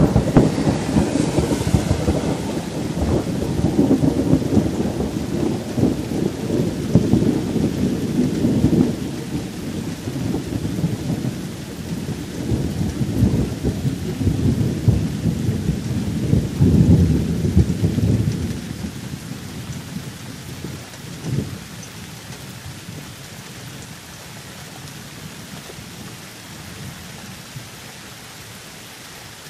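Thunderstorm: a long rolling rumble of thunder over steady rain, dying away about two-thirds of the way through, with one brief short peal a few seconds later. Then only the even hiss of rain is left.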